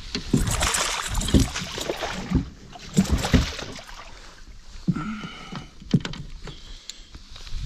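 Water splashing and sloshing in a landing net at the side of a boat as a hooked fish is handled in the mesh, heaviest for the first couple of seconds. Several sharp knocks against the boat follow.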